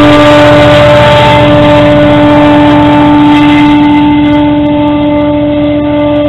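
GO Transit MP40 diesel-electric locomotive under power, pushing its train away from the station. Its engine drones loudly and steadily with a strong held tone, fading slowly as it draws away over the last couple of seconds.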